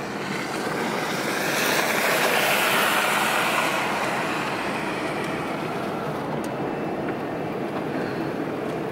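Road noise heard inside a 1999 GMC Safari van driving on a snow-covered highway: steady tyre noise on snow and slush with the engine running. It swells louder for a couple of seconds, about two seconds in.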